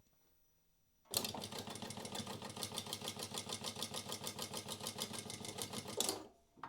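Prosew PS-1903SX industrial walking foot sewing machine sewing a programmed one-touch seam of 20 stitches with a start and end tack, in a fast, even rhythm of needle strokes. It starts about a second in and stops on its own about five seconds later, once the programmed seam is finished.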